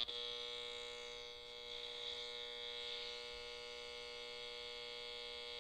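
Circuit-bent clock radio, its circuit board jumpered with alligator clips, putting a steady electronic buzz through its speaker: a drone of many held tones with a high whine on top. It drops in level at the start, then holds steady.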